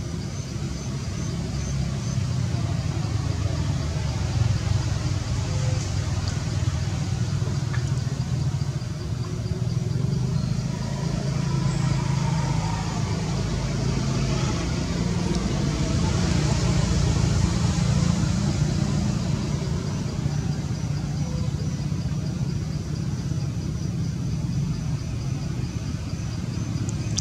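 Steady low mechanical rumble with no break, with a faint high, evenly pulsing chirp in the first few seconds.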